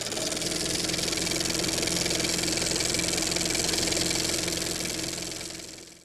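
Film projector running, as a sound effect: a steady mechanical whir with rapid even clatter and hiss, fading out near the end.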